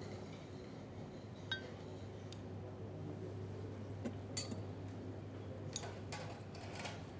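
A few light clinks of utensils against plates and dishes, one ringing briefly about a second and a half in, over a steady low hum.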